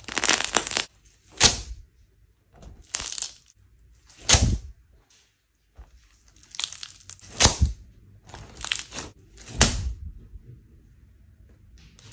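Hands playing with slime: a series of sharp crackling pops, one every second or two, with fainter crackle in between.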